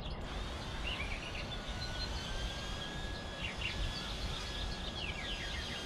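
Small birds chirping on and off over a steady low rumble of outdoor background noise.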